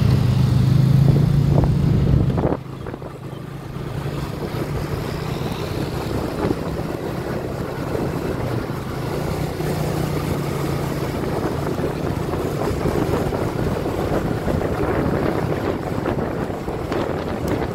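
Motorcycle running along a street, heard from the rider's seat: a loud low engine hum for the first couple of seconds, then a sudden drop, leaving wind buffeting the microphone and road noise with the engine fainter underneath.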